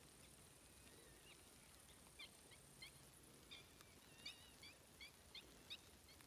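A bird calling, a quick series of about ten short chirping notes, roughly three a second, starting about two seconds in.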